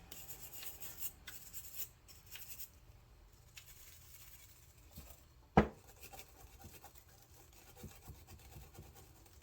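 Light scraping and rubbing strokes on a metal carburetor part as it is cleaned by hand, with one sharp knock a little past halfway.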